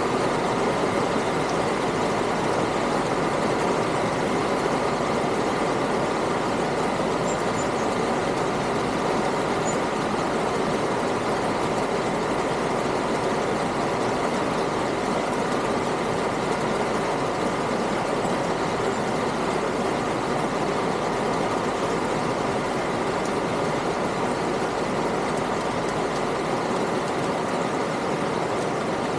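Steady, unchanging machine hum, like a motor or engine running, with a few faint high chirps about seven to ten seconds in.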